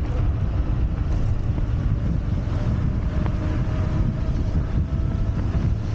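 Wind buffeting the camera microphone while riding a Wolf Warrior 11+ electric scooter, a dense low rumble, with a faint steady whine in the second half.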